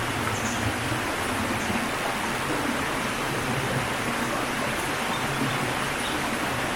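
Steady rushing of running water, an even hiss with no breaks, and a few faint high chirps over it.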